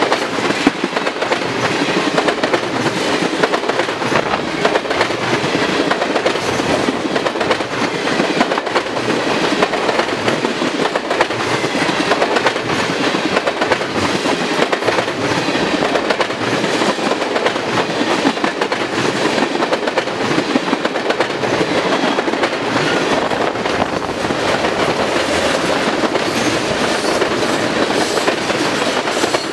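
Loaded freight cars (tank cars and covered hoppers) of a passing manifest train rolling by close at speed. The steel wheels on the rail make a steady, loud run of noise full of rapid clicking.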